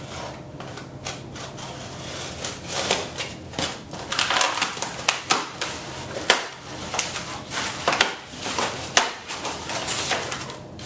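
Cardboard shipping box being handled and opened by hand: a run of crackles, scrapes and sharp knocks, thickest and loudest from the middle on.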